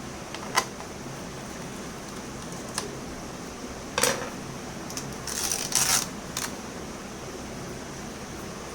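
A few sharp clicks and taps with a brief scraping rustle, as of laptop plastic parts being handled, over a steady background hiss.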